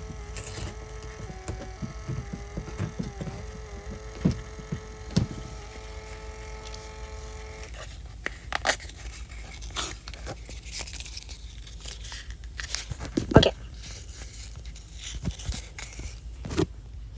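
A steady electrical-sounding hum that wavers slightly in pitch, which cuts off about halfway through, with scattered clicks, scrapes and rustles of small objects being handled.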